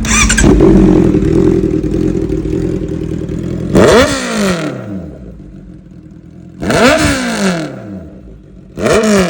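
Superbike with an aftermarket full-system exhaust, revved. There is a short rev at the start and the engine holds a steady, raised idle for a few seconds, then it takes three sharp throttle blips, each climbing quickly and falling back to idle.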